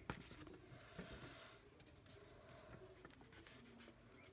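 Faint rustle of a thin folded paper leaflet being unfolded by hand, strongest in the first second and a half, with a few soft ticks of the paper.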